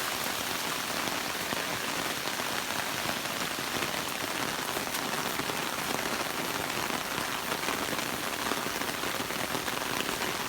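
Steady rain falling, a dense patter of many fine drops on wet ground.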